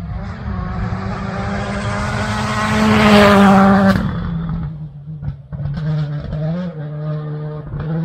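Rally car engine at high revs, rising and growing louder to a peak about three and a half seconds in, then dropping off sharply about four seconds in. After that a lower engine note runs on, its pitch shifting.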